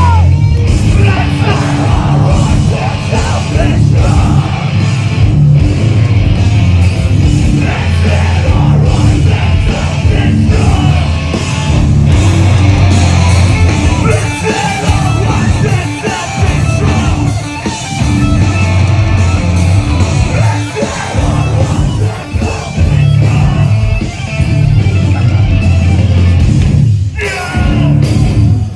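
A heavy band playing live at full volume: distorted guitars, bass and drums, with yelled vocals over them. The music drops out briefly near the end.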